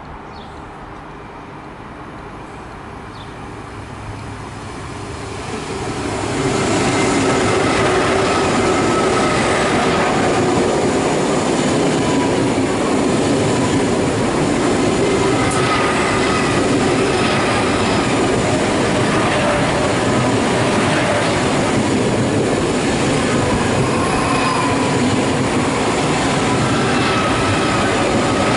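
A train approaching and passing through a station at close range. The sound builds over the first few seconds, then holds as a loud, steady rush of wheels on rail from about six seconds in, with thin, slightly wavering high tones running above it.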